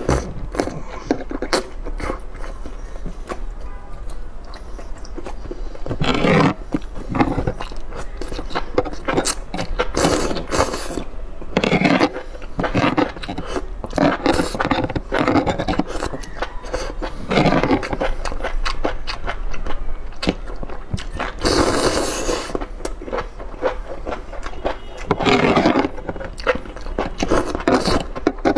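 Close-miked eating: chewing and wet mouth clicks, with several longer loud slurps as strands of saucy enoki mushroom are sucked in off a fork, and the fork scraping on the metal tray.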